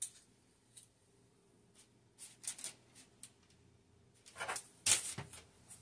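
Two metal tablespoons clicking and scraping as they scoop cornmeal dough from a mixing bowl. About four seconds in come louder scrapes and papery rustling as the dough is pushed off the spoons onto parchment paper.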